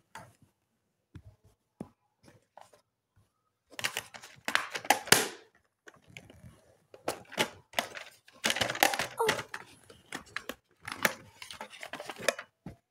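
Plastic makeup case and compacts being handled and rummaged through, in four bursts of rustling and clicking about a second or two long, starting a few seconds in.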